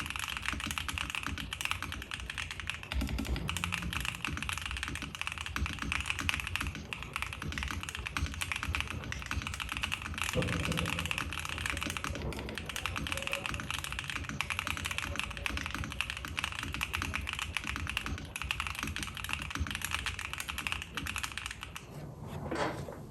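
Continuous fast typing on a gasket-mounted James Donkey RS2 4.0 mechanical keyboard with Jam Ice Cream switches on an FR4 plate: a dense, uneven run of keystroke clacks. A brief rising swish comes near the end.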